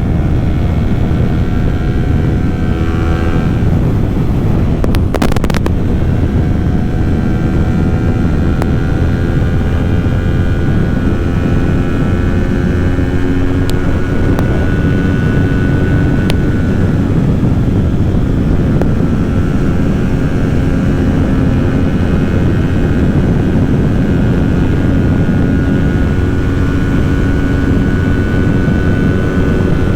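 Kawasaki Ninja 400's parallel-twin engine running at a steady cruising speed, its pitch drifting slightly, under heavy wind noise from riding. A brief sharp click about five seconds in.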